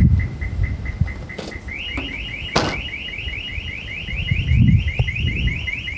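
Suzuki car's anti-theft alarm going off, set off by opening the car without unlocking it first. It starts as a steady high beeping tone, then about two seconds in switches to rapid rising chirps, about five a second. A few sharp clicks sound over it, the loudest near the middle.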